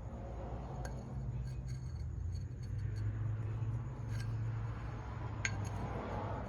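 A few light metallic clicks and clinks as a piston ring compressor is fitted around an engine piston, over a steady low hum.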